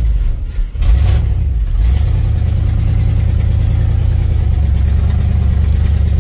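1966 Ford F100 pickup's engine running, with a short louder surge about a second in, then idling steadily.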